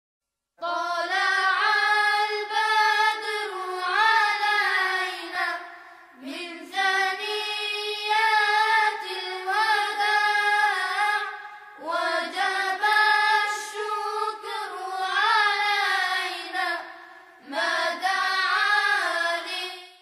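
A single high voice sings an unaccompanied melodic chant in four long phrases, with short pauses between them.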